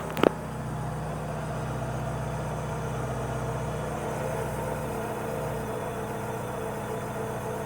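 Alfa Romeo 146 ti's 2.0 Twin Spark engine idling steadily, with the strange whistle the owner is trying to trace. A sharp click about a quarter second in.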